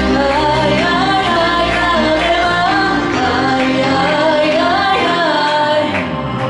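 A woman singing live into a handheld microphone over pop music with a steady beat and bass, her voice carried through the club's PA.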